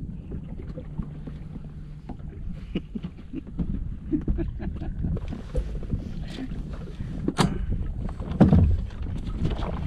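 Bass boat on the water: a steady low rumble with scattered knocks and clicks, a sharp clack about seven seconds in and a heavier thump soon after.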